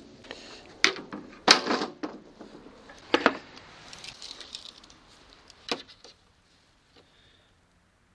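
About four sharp knocks and metallic clatters in the first six seconds as an aluminium circular-saw guide rail and the saw are handled and set down on a chipboard panel, with a tape measure being handled.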